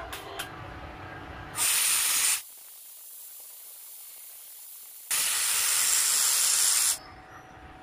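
Stick (arc) welding on a small steel part: two bursts of steady hiss, the first under a second long and the second nearly two seconds, each starting and stopping abruptly.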